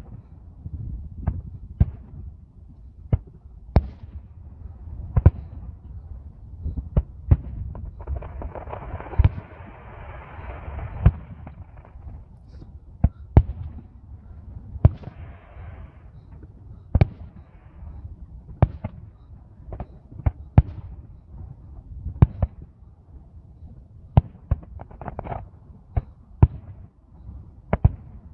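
Fireworks going off: a string of sharp bangs at irregular intervals, with a crackling hiss lasting a few seconds about a third of the way through.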